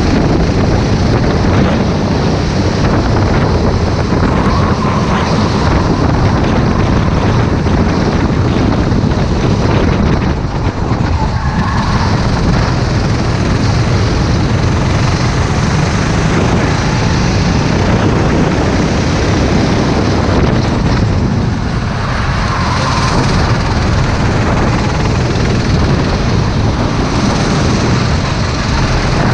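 Racing kart engine running hard on track, recorded from onboard with wind buffeting the microphone. The engine eases off briefly twice, about ten seconds in and again about twenty-one seconds in, as if lifting for corners, then pulls again.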